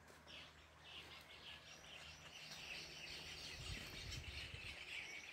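Faint birdsong: many small birds chirping in quick, repeated notes. A low rumble comes in about midway.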